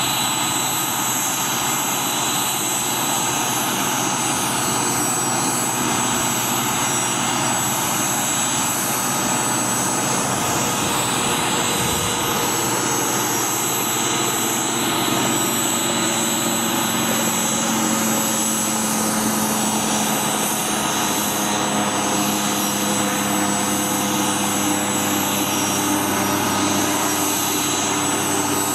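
Boeing CH-47 Chinook helicopter's turbine engines running on the ground: a steady turbine whine with high steady tones over a broad rush, and a lower tone that comes in and rises slightly in the second half.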